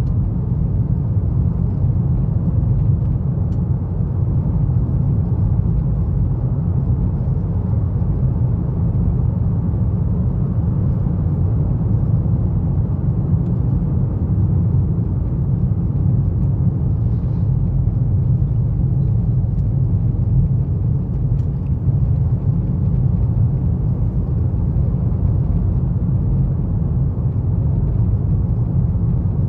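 Steady low rumble of road and engine noise inside a moving car's cabin, even in level throughout.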